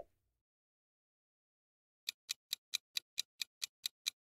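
Countdown-timer clock ticking sound effect, starting about two seconds in with sharp, even ticks at about four to five a second.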